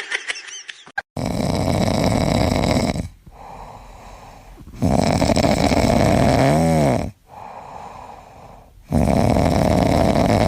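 Loud snoring: three long snores of about two seconds each, roughly four seconds apart, with quieter breathing between. The middle snore has a brief squeaky whistle in it.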